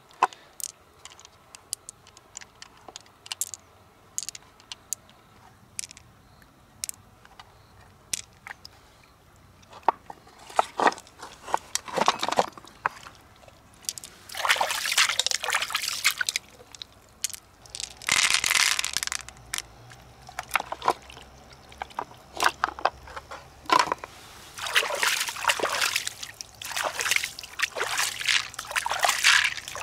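Water sloshing and splashing in repeated bursts of a second or two, as something is moved about in water by hand. In the first third there are only sparse, small sharp clicks.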